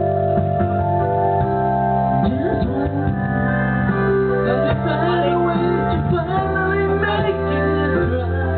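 Backing track of held electronic organ chords, with a man singing over it through a handheld microphone, his voice coming in about two seconds in and carrying most of the second half.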